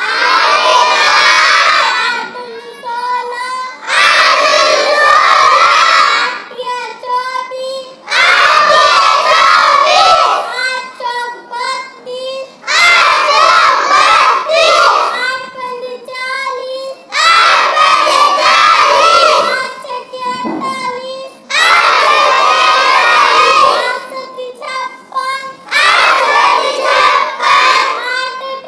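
A group of children chanting the 8 times table in Hindi together, one line about every four seconds. Each loud chorus is followed by a quieter stretch with a single voice.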